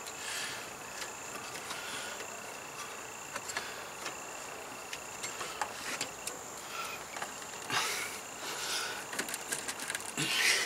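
Scattered faint clicks and rubbing as a new serpentine belt is worked by hand onto the pulleys of a 1996 Ford F-150's 5.0 V8, with a few louder rustles near the end. A faint steady high tone runs underneath.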